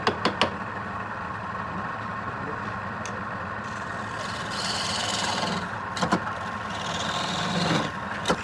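Wood lathe motor running with a steady hum, with sharp knocks at the start, about six seconds in and near the end, and two hissing spells of the tool cutting the spinning wood, about halfway and toward the end.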